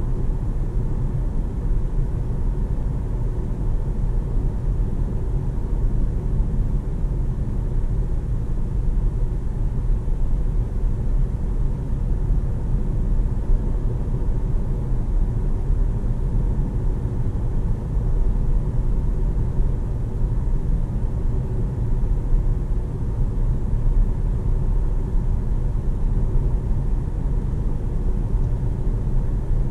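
Steady low cabin rumble of a Jeep Compass 1.5 e-Hybrid cruising at about 80 km/h, heard from inside the car: tyre and road noise mixed with the engine, even throughout.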